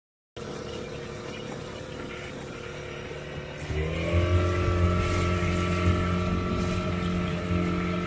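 Small outboard motor running slowly, then speeding up about four seconds in and holding a steady higher speed as the dinghy gets under way.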